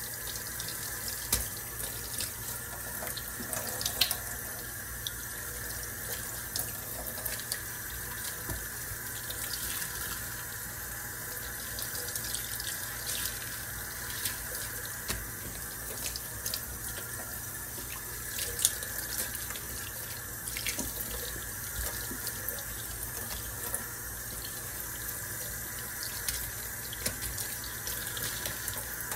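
Kitchen faucet running into a stainless-steel sink, the stream splashing over hands and sudsy sponges being rinsed under it, with frequent small splashes and drips.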